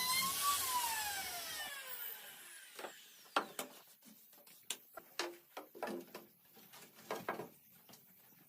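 A power tool's motor whining down after being switched off, its pitch falling over about two seconds, followed by a series of light scattered clicks and knocks.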